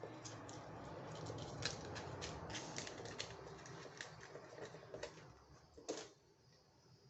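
Brown paper being rolled up by hand into a small tube: a run of quick crinkling ticks and rustles, with a sharper click about six seconds in.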